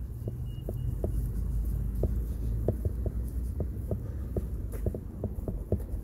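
Footsteps on a concrete sidewalk, soft regular taps about two or three a second, over a low steady rumble of wind on the microphone.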